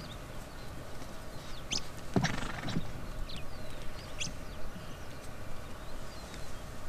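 Plains zebras moving about on dry, dusty ground during a dust bath: hoof steps and scuffling, with one louder rough burst about two seconds in.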